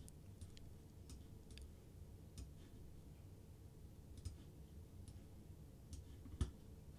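Faint, scattered computer mouse clicks, eight or so at irregular intervals, the loudest near the end, over a low room hum.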